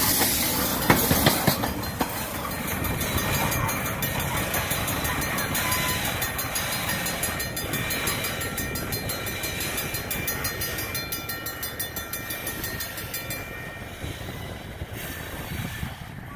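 Union Pacific freight train's last tank car rolling over the rails, wheels clacking as it passes close at first, then the train's rumble steadily fading as it draws away.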